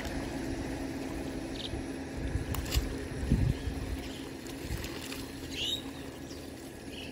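A steady low engine hum, with a few low thumps about halfway through and brief bird chirps now and then.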